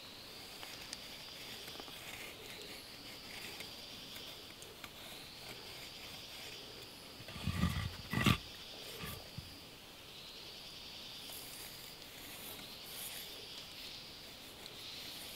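A steady high drone of forest insects, swelling and fading every few seconds, with faint pencil scratches on a wooden block. About halfway through, a dull knock with a sharp click as the block is turned on the log.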